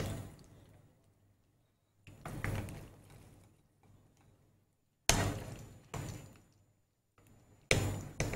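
A metal slotted spoon knocking against a wok while fried samosas are lifted out of the oil: about six sharp knocks at irregular intervals, each dying away over about a second.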